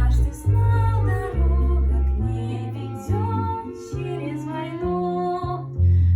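A young girl singing a slow waltz-time song over instrumental accompaniment, with a deep bass note that changes about once a second.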